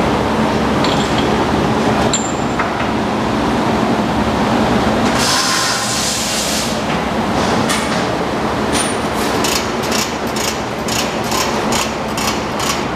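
Repair-shop background noise: a steady loud rumble, a burst of hiss lasting about a second and a half around the middle, then a run of sharp knocks, about two or three a second, through the second half.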